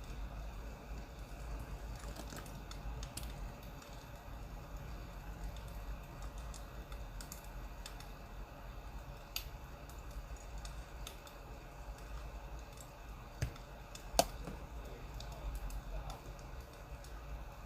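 Crackling wood fire: sparse small pops and clicks over a low steady hum, with two sharper pops about 13 and 14 seconds in.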